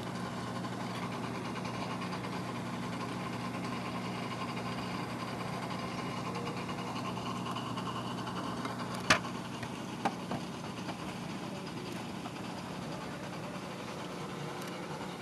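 Low, steady electric hum of a reef aquarium's running equipment. A sharp click comes about nine seconds in, with two fainter clicks about a second later.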